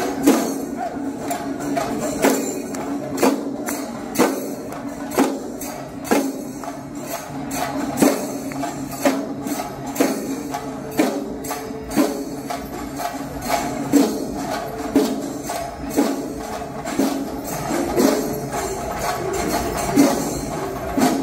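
Percussion music with jangling cymbals and a strong beat about once a second over a steady droning melody.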